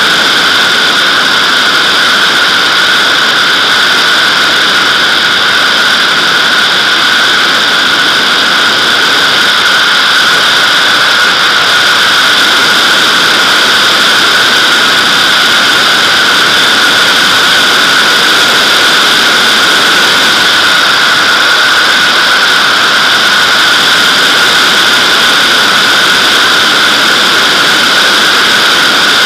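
Airflow rushing over a camera mounted on top of a Nimbus-2 glider's fuselage in flight: a steady, loud rush with a few constant high tones in it.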